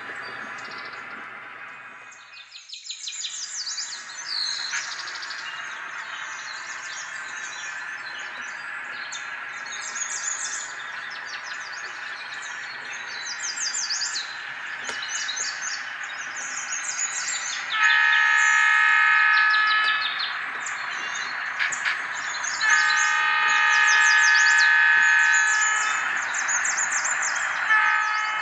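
Birds chirping throughout over a steady low hum. In the second half, a diesel locomotive horn sounds twice: a blast of about two seconds, then a longer one of about three seconds.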